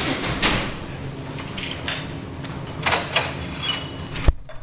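Scattered knocks and clicks of laboratory glassware and a clamp stand being handled on a bench, with a brief glassy ring about three-quarters of the way through.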